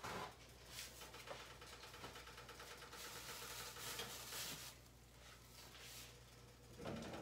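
Quiet kitchen room tone with a low steady hum, and a few faint clicks and soft rustles of handling near the stove.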